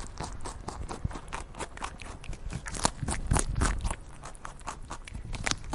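An animal chewing: rapid, irregular crunching clicks, loudest about three seconds in.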